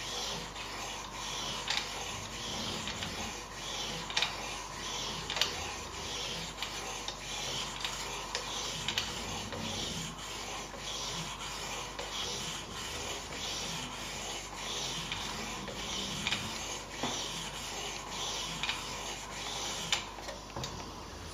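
Sharpening stone on a guided sharpening system rubbed in repeated strokes along the steel blade of a Buck 110-style folding knife, a steady scraping rasp with a few sharp clicks.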